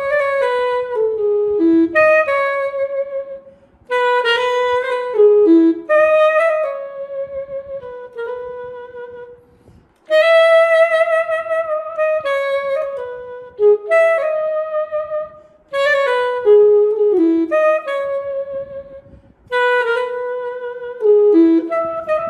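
Sampled saxophone (VHorns virtual instrument) played from an EWI electronic wind controller: melodic phrases of held notes and falling runs, with short breaths between phrases.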